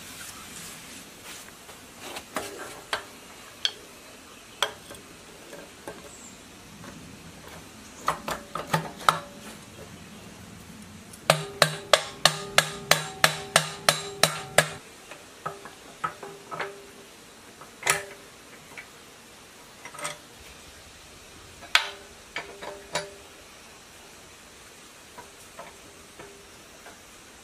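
Metal tools and parts clinking and knocking against the cast-iron block of a 1115 diesel engine during hand assembly: scattered single taps, with a run of about a dozen quick ringing metallic taps, about four a second, a little under halfway through.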